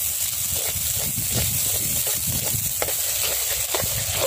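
Chopped tomatoes and onions frying in oil in a clay pot while a metal spatula stirs them. There is a steady sizzle with scattered scrapes and taps of the spatula against the pot, over a low rumble.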